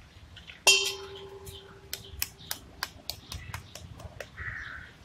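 An egg knocked sharply against the rim of a bowl, which rings briefly, followed by about ten light, irregular clicks and taps of shell as eggs are cracked open.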